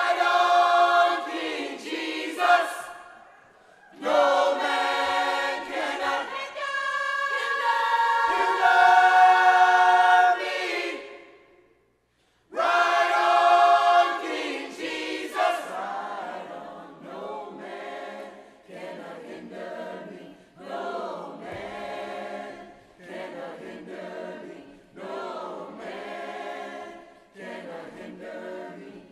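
Mixed church choir singing in harmony: long loud held chords for the first half, breaking off briefly twice, then quieter, shorter phrases.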